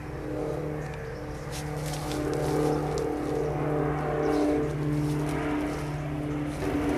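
Bedlington terrier digging with its head down in a hole in the soil, giving a run of low grumbling growls, each about a second long with short breaks between them, along with a few faint scrapes of earth.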